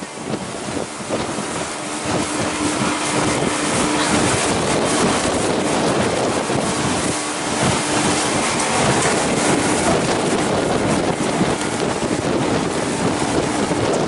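Small motorboat under way at speed: a steady rush of wind on the microphone and water over the hull, with the boat's engine running underneath as a faint steady hum.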